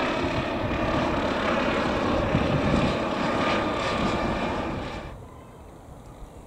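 MD 902 Explorer helicopter flying low overhead, its turbine and rotor noise loud and steady. The sound cuts off abruptly about five seconds in, leaving a much quieter background.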